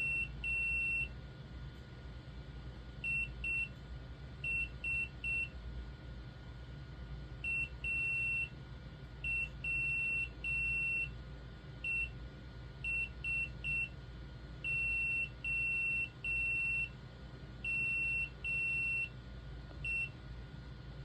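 A Raspberry Pi Pico Morse code translator beeping out a typed message as Morse code: short and long beeps of one steady high tone, with uneven gaps between them.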